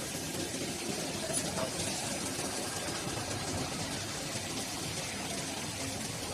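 Steady mechanical running noise of a 5-axis gantry CNC machining centre at work, an even hum and hiss with no breaks.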